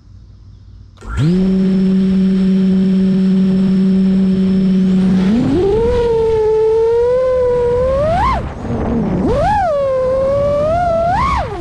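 Small quadcopter drone's electric motors spinning up about a second in and holding a steady whine. About halfway through it takes off: the whine climbs in pitch and wavers with the throttle, swooping up sharply three times.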